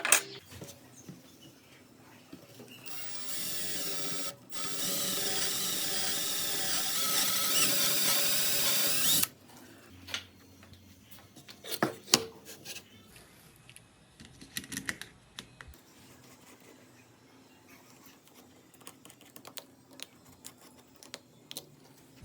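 A small power tool's motor runs for about six seconds, cutting out once briefly and creeping slightly up in pitch. Scattered clicks and knocks follow.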